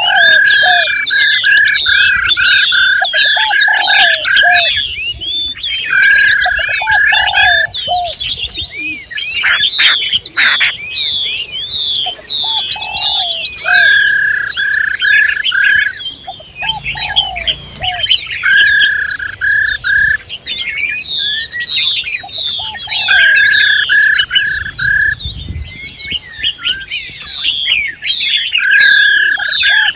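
Female songbirds calling together: dense high chirps and twitters, broken every few seconds by a quick run of identical steady notes, with shorter, lower notes between.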